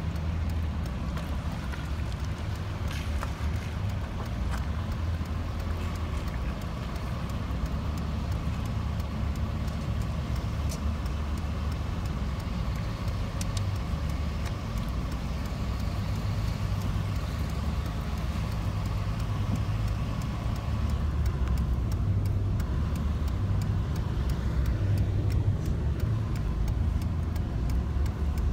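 Engine and tyre noise heard from inside a vehicle's cab driving on wet pavement: a steady low rumble, with a faint steady whine through the middle.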